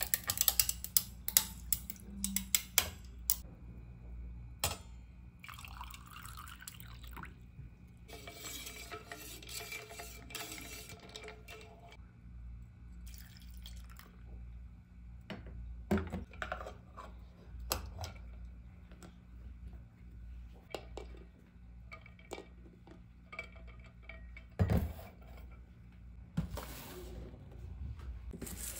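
Water poured into a stainless steel tumbler in a few separate pours, with sharp clinks and knocks of glass and metal between them.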